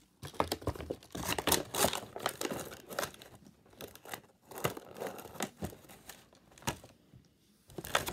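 Toy packaging being torn open and crinkled by hand while an action figure is unboxed: irregular rips and rustles, loudest in the first couple of seconds.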